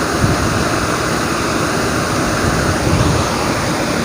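Waterfall's falling water rushing steadily, with an uneven low rumble underneath.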